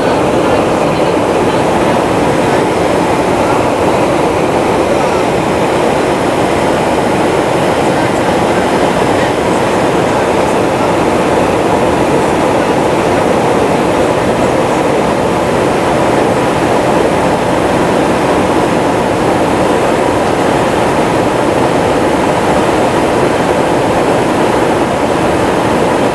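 Steady in-flight noise inside a KC-135 tanker's boom operator station: air rushing past the airframe with the drone of the engines, unchanging throughout.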